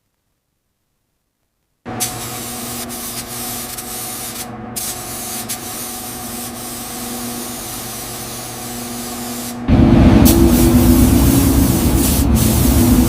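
Spray gun hissing steadily over a low machine hum; it starts abruptly after about two seconds of silence and cuts out briefly twice. About ten seconds in, a louder, deeper, rumbling noise takes over.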